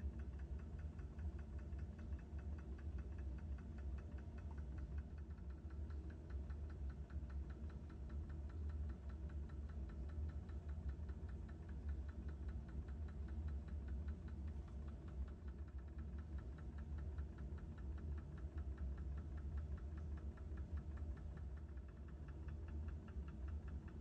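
IKA KMO 3 basic magnetic stirrer running at 300 rpm: a steady low hum with a fast, even mechanical pulse above it.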